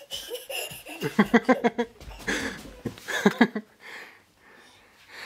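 A toddler giggling and laughing in short bursts, once about a second in and again about three seconds in, with breathing between.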